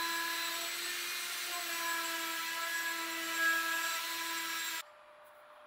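Woodworking machine motor running at speed: a steady high whine over a hiss, which cuts off abruptly nearly five seconds in.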